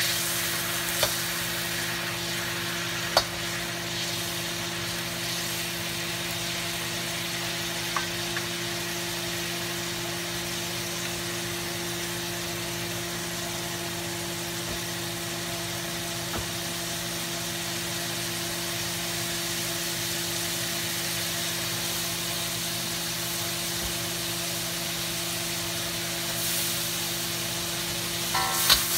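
Butter and leftover crab cooking liquid sizzling gently in a carbon-steel wok over low heat, as a steady hiss over a low hum. A few light clicks, and about a second before the end a spatula knocks against the wok.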